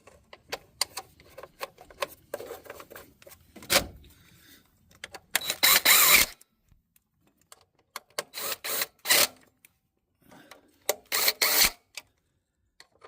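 Tools being worked and handled on the engine: scattered clicks and knocks, and three loud bursts of rapid clatter, each about a second long, about five, eight and eleven seconds in.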